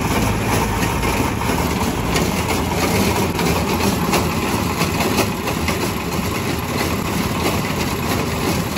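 Motor-driven grinding machine running steadily: an upright wooden pestle turning in a wide metal bowl, grinding a coarse mixture of seeds and nuts with a constant hum and rasp.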